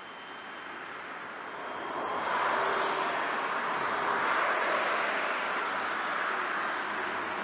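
A train approaching and running past. Its rolling noise swells over the first two and a half seconds, then holds steady.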